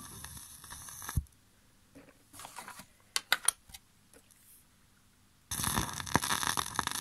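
Ska music playing from a 7-inch single on a turntable stops abruptly about a second in. A near-quiet gap follows, with a handful of small clicks and taps, then the next 1960s ska record starts suddenly about five and a half seconds in.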